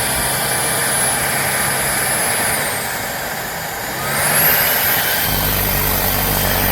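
Shark Stratos cordless stick vacuum running, with a high-pitched motor whine. About three seconds in the whine drops and the sound eases; a second later the motor climbs to a higher pitch and runs louder.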